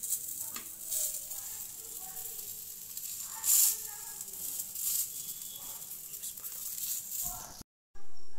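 Omelette sizzling in hot oil in a frying pan, a steady high hiss with a few louder swells, about one, three and a half and five seconds in, as a metal spatula scrapes the pan while folding it.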